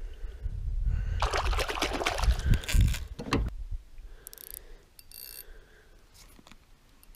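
Water splashing and rustling as a yellow perch is let go by hand into the river, loudest for a couple of seconds near the start, followed by a few faint clicks and rattles.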